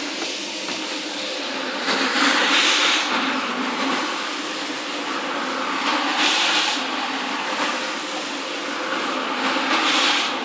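Single-disc rotary floor scrubber running on a soapy shag rug: a steady motor hum under a wet scrubbing hiss that swells three times, about four seconds apart.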